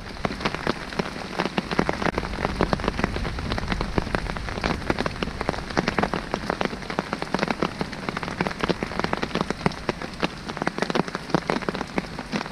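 Rain falling and striking a surface close by: a dense, irregular patter of drops.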